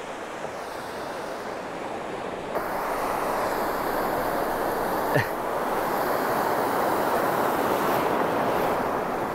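Ocean surf washing in over the shallows, a steady rushing noise that grows louder about two and a half seconds in.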